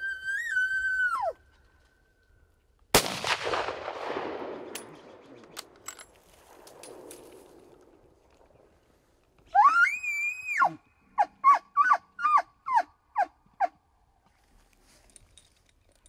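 A tule elk bull's bugle, a high whistle, ends in the first second. About three seconds in a single rifle shot cracks and echoes away over a couple of seconds. Near the middle the bull bugles again, a rising whistle, then gives a string of about seven short chuckling grunts.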